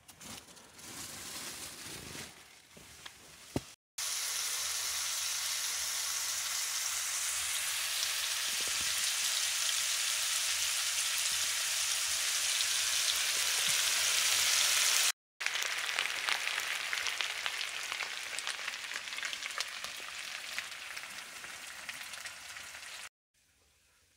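Minced meat sizzling in a frying pan on a portable gas stove. The sizzling starts about four seconds in after a quieter stretch and comes in two long stretches, with a short break in between. The second stretch slowly fades.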